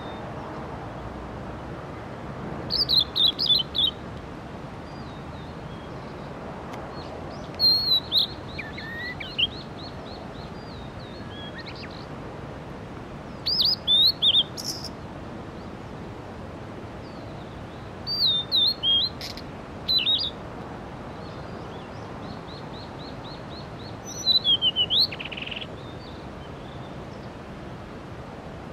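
Male blue-and-white flycatcher singing: five short, clear, high whistled song phrases spaced several seconds apart, some with a quick run of repeated notes.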